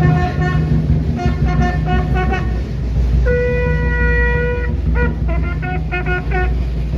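Bugle call: quick groups of repeated notes, one long held note about three seconds in, then more quick repeated notes, played loud over a steady low rumble.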